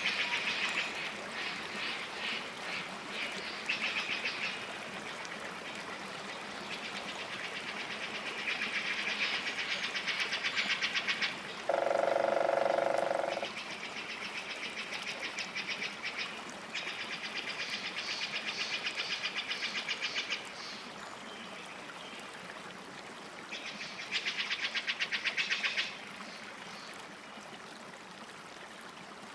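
Animal calls: rapid pulsed trills, each a couple of seconds long, repeat again and again over a faint steady wash of water. About halfway through comes one longer, lower pitched call.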